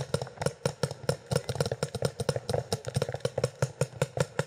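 Paintball markers firing in rapid, sustained strings, about seven shots a second, with no break.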